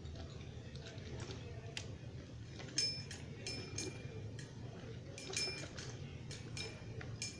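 Toy train cars and track pieces being handled, giving about a dozen irregular light clicks and clinks, some with a brief ringing, over a low steady hum.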